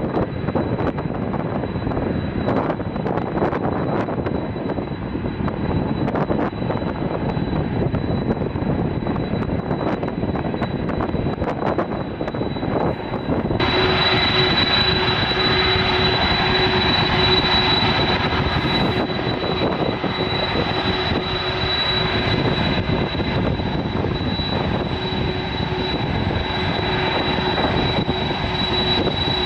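Boeing 747 jet engines running steadily: a dense rumble with a thin high whine over it. About halfway through the sound changes abruptly, with the whine growing stronger and a lower steady tone joining it.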